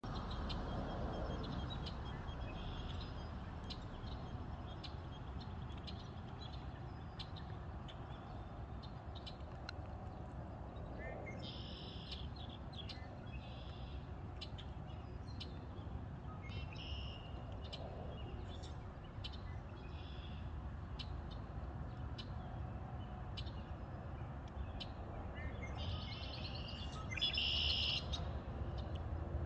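Small songbirds singing and chirping in short high phrases, with the loudest bursts near the middle and near the end, over a steady low rumble.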